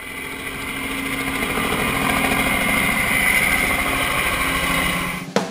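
Helicopter running: a steady high whine over a fast, even low chop. It fades in over the first couple of seconds and cuts off abruptly near the end with a click.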